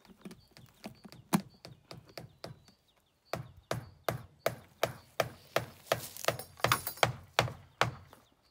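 Claw hammer nailing a thin MDF sheet onto a wooden pallet frame. Light, quick taps for the first few seconds, then, after a short pause about three seconds in, a steady run of harder blows at about three a second.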